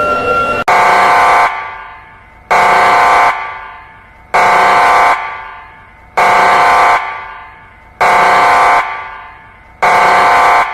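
Horn-type warning siren sounding six short blasts, about one every two seconds. Each blast is a chord-like tone that stops abruptly and then echoes away.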